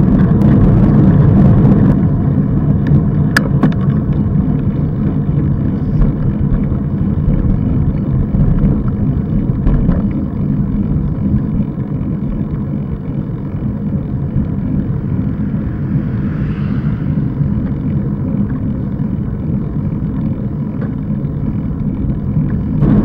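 Wind rushing over the microphone of a camera on a moving road bike: a steady low rumble, loudest in the first couple of seconds and easing somewhat about halfway through.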